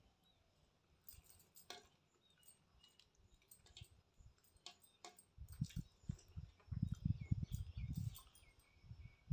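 Quiet, close-up eating sounds: faint small clicks and taps from hand and bowl, then about halfway through a few seconds of chewing, heard as a run of soft low thumps.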